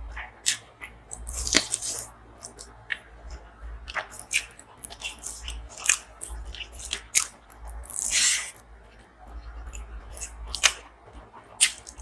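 A person chewing and biting food with irregular, sharp crunches and wet clicks, and a longer, louder crunch about eight seconds in.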